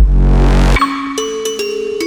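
Electronic background music: a deep bass note, then bell-like notes stepping in pitch.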